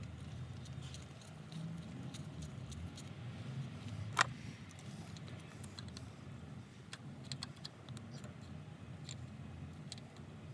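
Small metallic clicks and taps of hands and an open-end wrench on a brass engine temperature sensor as it is threaded in and tightened, with one sharper click about four seconds in, over a low steady rumble.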